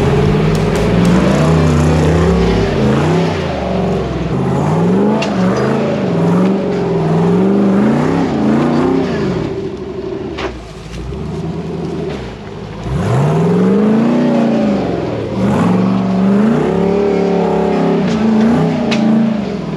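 Off-road 4x4's engine revving up and down over and over, as it climbs and works over obstacles, with a long hard rev about two thirds of the way through.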